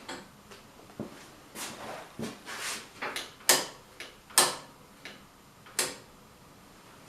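Tools and small parts being handled and set down on a workbench: scraping and rustling, then a run of sharp clicks and knocks, the loudest about three and a half and four and a half seconds in.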